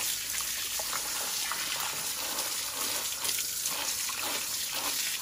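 A steady stream of water pouring and splashing onto a poodle's wet coat and into a basin of soapy water.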